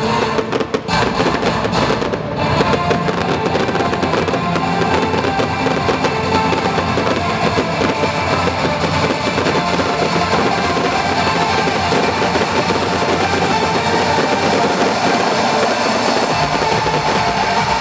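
Loud show music playing, mixed with fireworks going off: sharp bangs and crackle, most of them in the first couple of seconds, under the continuing music.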